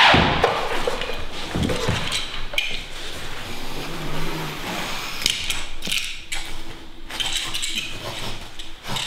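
Roll of Thermoflow carpet underlay being unrolled and pushed along the floor by hand: its papery facing rustles and crackles with irregular scuffs, loudest at the very start.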